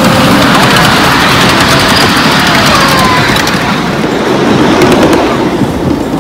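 Ride-on miniature railway train running along its narrow-gauge track, with wind buffeting the microphone and the cars giving off a stream of small clicks and rattles.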